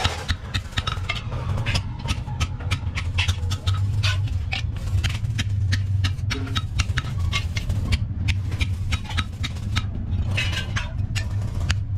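Hand hammer striking a steel flat bar laid on a steel block: quick, repeated sharp metal blows, several a second. Under the blows runs a steady low machinery hum.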